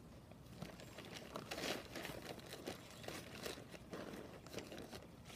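Gloved hands rummaging through soil in a potato grow bag: irregular rustling, crinkling and scraping of the bag and dirt as potatoes are dug out.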